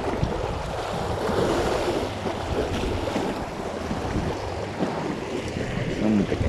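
Wind buffeting the microphone over the wash of the sea, a dense, even rumble with a low steady hum underneath.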